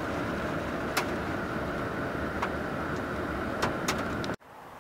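Rain falling on a pickup truck, heard from inside the cab with the defogger fan running: a steady hiss with a few sharp ticks of drops striking the glass and roof. Near the end the sound cuts off abruptly to a quieter background.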